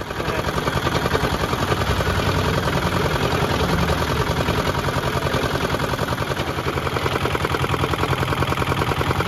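Sugarcane juice roller crusher running, its geared ribbed steel rollers crushing sugarcane stalks, with a steady, rapid engine-like mechanical pulse.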